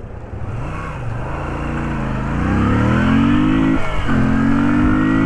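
2017 Moto Guzzi V7 III's air-cooled transverse V-twin accelerating hard through the gears on a 0–100 km/h run, revs climbing and growing louder, with one upshift near four seconds in where the pitch drops and then climbs again.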